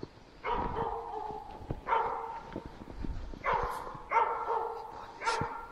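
Hunting laika barking repeatedly at a black grouse cock, about five barks a second or so apart. This is the steady baying by which the dog holds the bird and shows the hunter where it sits.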